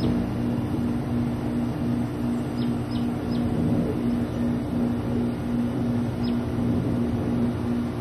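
A steady low mechanical hum that pulses evenly about twice a second. A few short, high, downward-sliding bird chirps sound three times close together about three seconds in and once more near the end.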